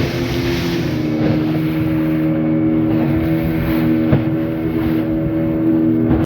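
Motorboat engine running steadily at cruising speed, with rushing water and wind noise over it.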